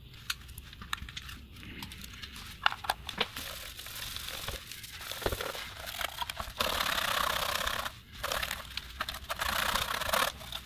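Sharp plastic clicks and knocks as a small screwdriver works a screw and the plastic radio case is handled, then a tissue rubbing and crinkling over the case as it is wiped, in spells of a second or two with clicks between.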